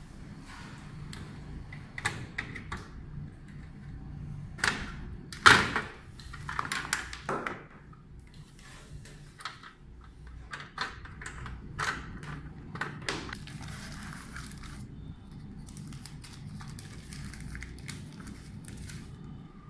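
Handling noise while a hard drive is fitted into a metal recorder case and the case is turned over: scattered clicks and knocks of metal and plastic, the loudest about five and a half seconds in. Softer rustling near the end as a plastic bag is handled.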